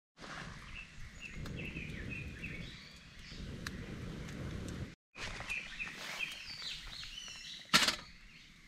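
Air blown through a metal fire-blowing pipe into a wood fire: a low rushing sound in two long breaths, with birds chirping. Later a single sharp metal clack as the hot sandwich maker is set down on the grill.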